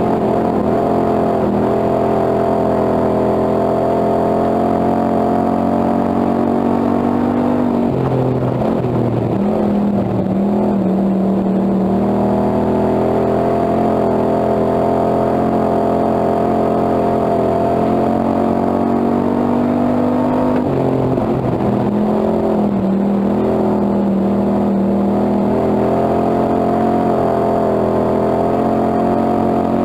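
Hobby stock dirt-track race car's engine heard from inside the cockpit under racing load, running loud and steady; its pitch drops twice for a few seconds and climbs back as the car goes round the track.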